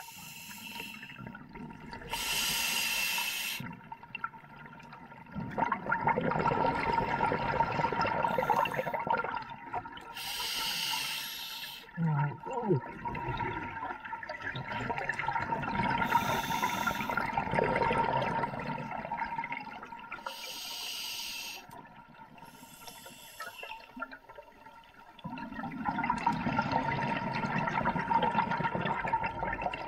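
Scuba regulator breathing underwater: slow breaths, each a short hiss of air drawn through the demand valve followed by a longer rushing, bubbling exhalation.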